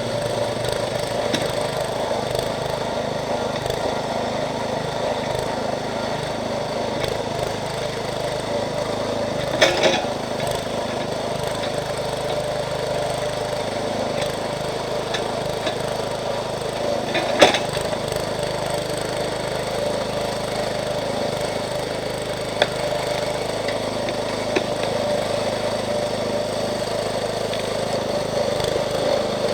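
Small gas engine of a Jansen MB 300 towable backhoe running steadily while the hydraulic backhoe digs out a stump, with a few sharp cracks or knocks scattered through, the loudest about halfway in.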